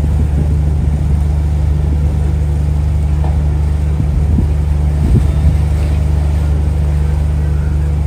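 A steady low engine drone, unchanging throughout.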